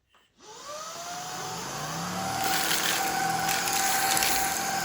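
Shark IZ320UK cordless stick vacuum switched on about half a second in, its motor whine rising in pitch as it spins up, then running steadily on its medium setting. The rushing hiss of the airflow grows louder about halfway through.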